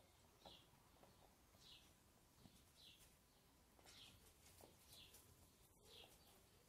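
A small bird chirping faintly in the background: short high chirps repeated about once a second, with a few soft clicks in between.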